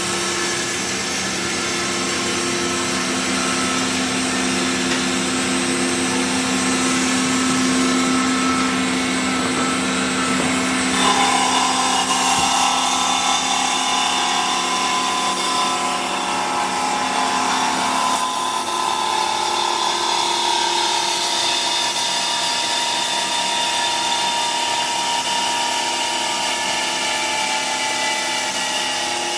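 JMT DCBA 360 horizontal dual-column band saw running, its blade slowly cutting through a clamped block of wood. Steady, with its tone shifting about eleven seconds in and again about eighteen seconds in.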